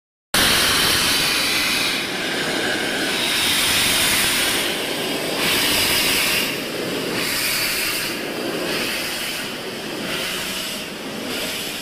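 BR Standard Class 4 2-6-4 tank locomotive 80097 moving slowly, with loud steam hiss from around its cylinders coming in repeated surges roughly a second apart. The sound grows quieter toward the end.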